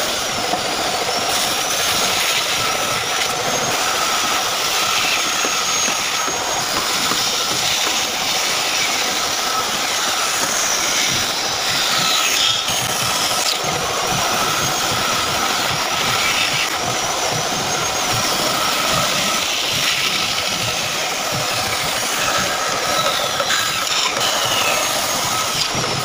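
Bandsaw running steadily while its blade cuts through a thick block of wood, a continuous hiss of the cut with a thin high whine that comes and goes.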